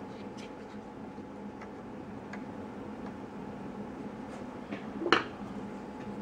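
Faint clicks and taps of small plastic toy-truck parts being handled during reassembly, with one sharper, louder clack about five seconds in, over a steady low electrical hum.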